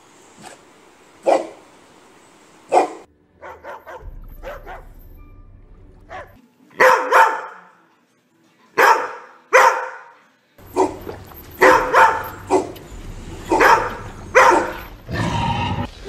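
Dogs barking in turn, a grey Neapolitan mastiff and a white poodle among them: about a dozen barks, some single and some in quick pairs. A low rumble comes in near the end.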